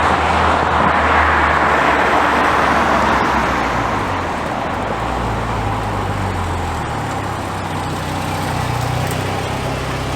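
Acura Integra four-cylinder engine running through its reworked exhaust as the car drives, with a loud rushing road and wind noise over the first few seconds. The engine note then climbs in pitch in steps toward the end.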